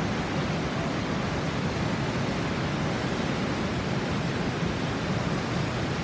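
Heavy whitewater rushing steadily over rock ledges at a large Mekong River waterfall.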